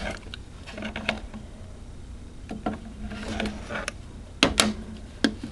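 Hard Lucite purse being handled: scattered light clicks and taps, with two sharper clicks close together near the end.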